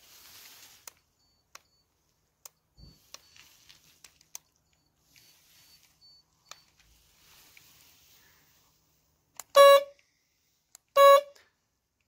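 Citroën 2CV's horn, worked from a remote control, giving two short honks about a second and a half apart near the end, after a run of light clicks.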